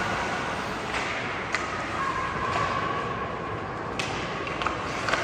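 Ice hockey game in an ice rink: steady arena noise with a few sharp knocks of sticks and puck, one about a second and a half in, a louder one about four seconds in, and a couple more near the end.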